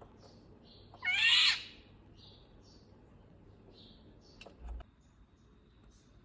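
Indian golden oriole giving one loud call about a second in, lasting about half a second. Faint short high chirps repeat throughout, and a brief low thump comes near the end.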